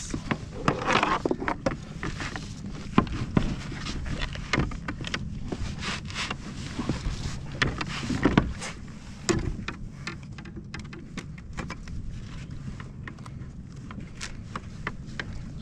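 Clicks, knocks and rattles of fishing gear being handled aboard a plastic fishing kayak as a lingcod is worked in a landing net with lip-grip pliers, over a steady low rumble of wind and water.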